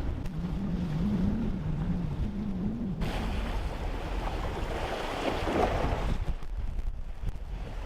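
Wind buffeting the microphone and water rushing along the hull of a wooden sailboat under way. A low wavering hum runs through the first three seconds, and the sound changes abruptly about three seconds in.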